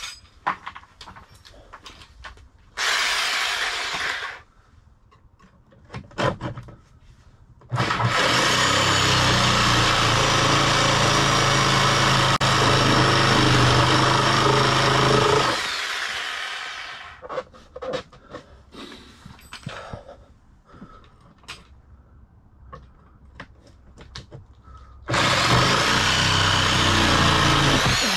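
Reciprocating saw (Sawzall) cutting through a steel nut and bolt fused together by rust. There is a short burst about three seconds in, then a long cut of about eight seconds, then another run near the end, with clicks and knocks of metal between the cuts.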